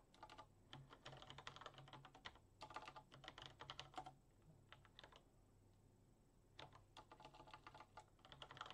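Computer keyboard typing in quick runs of key clicks, with a pause of about a second and a half just past the middle.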